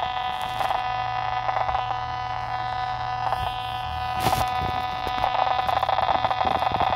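Analog TV sound from a portable set on a weak, distant UHF signal: a steady harsh buzz made of many evenly spaced tones, the sync buzz typical of analog TV sound on a weak signal, with a short crackle about four seconds in.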